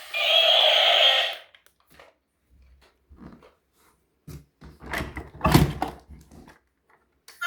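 A steady pitched sound cuts off about a second and a half in. Then come scattered light knocks and clatter of objects being handled, with a louder thump a little past the middle.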